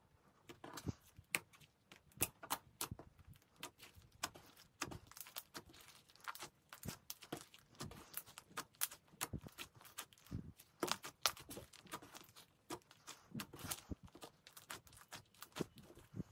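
Hands kneading and folding a large batch of white slime with Daiso clay being worked in, making a steady stream of irregular, faint sticky clicks and pops.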